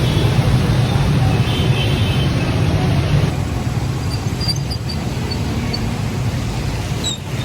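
Road traffic noise: motor vehicle engines running with a steady low rumble, a little quieter after about three seconds.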